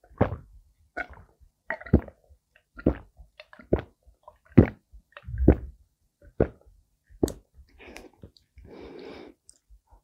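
A person gulping a drink from a glass bottle, one loud swallow about every second, eight or nine in all, followed by a breathy exhale near the end.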